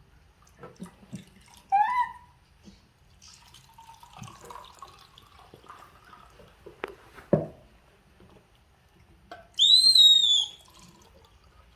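Pet monkey giving high-pitched squeals: a short rising chirp about two seconds in and a louder, longer shrill squeal near the end, with a soft thud in between.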